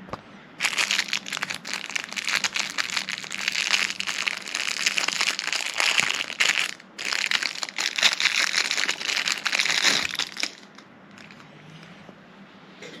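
Plastic packaging crinkling and crackling as it is handled and unwrapped, with a short pause about seven seconds in, then stopping near the end.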